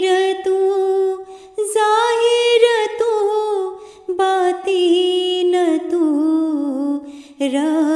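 A single voice sings a devotional tasbih unaccompanied. It chants a slow, repeating litany in long held phrases that glide in pitch, with short breaks between them.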